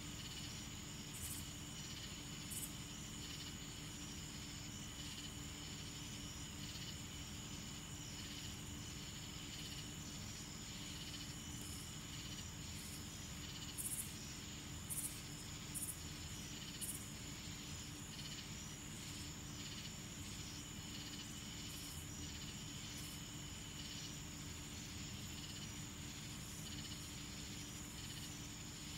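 Night insects chirping, a steady high trill with faster pulsing chirps under it, over a low steady rumble. A few short sharp ticks come through around the middle.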